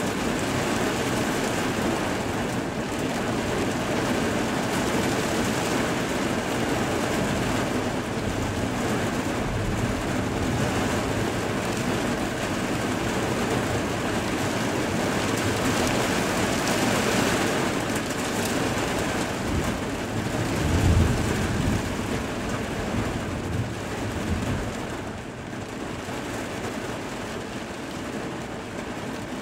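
Heavy thunderstorm rain falling steadily, with a low rumble of thunder swelling about two-thirds of the way through as the loudest sound.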